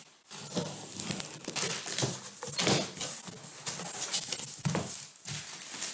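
A cardboard shipping box being opened: a box cutter slicing along the packing tape, and the cardboard flaps scraping and rustling as they are pulled open, in a run of irregular scrapes.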